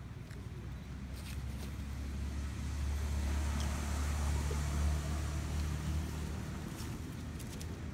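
A passing motor vehicle: a low engine rumble that swells in the middle and then fades away.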